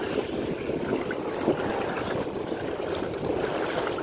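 Shoreline ambience: shallow lagoon water lapping and wind buffeting the microphone, a steady rushing noise. The RC speedboat is too far out for its motor to stand out.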